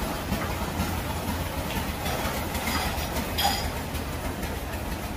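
Steady low rumble of busy market background noise, with a few light clinks; the clearest is about three and a half seconds in.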